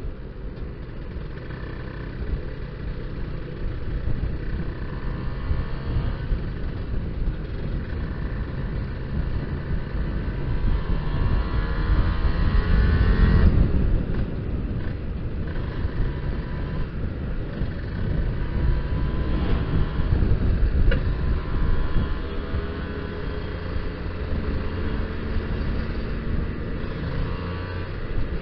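Kawasaki Ninja R's 150 cc two-stroke single-cylinder engine pulling hard under way, its pitch climbing and breaking off several times as it goes up through the gears, over heavy wind rumble on the microphone. The carburettor is set rich, which the rider says makes the bottom end sputter a little.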